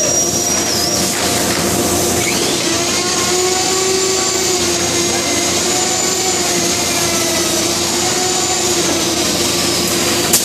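Automated door-panel handling machine running with a steady loud mechanical hum and hiss. A high whistling tone rises about two seconds in, holds, then slowly falls near the end, and a sharp click comes just before the end.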